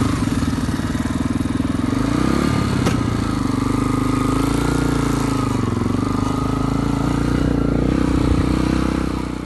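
Motorbike engine running while riding, its pitch rising and falling gently with the throttle, with a single sharp click about three seconds in.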